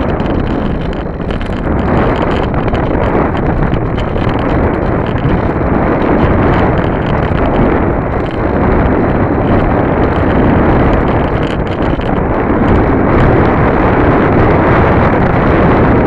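Airflow rushing over the microphone of a keychain camera on the tail of an AXN foam RC plane in flight, a steady rough wind noise. No motor whine is heard: the plane is gliding with its electric motor off.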